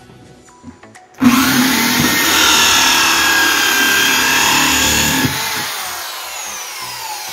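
Corded electric drill with a hole saw cutting a hole through a plastic bucket lid. It starts suddenly about a second in and runs hard for about four seconds, then the motor winds down with a falling whine once the cut is through.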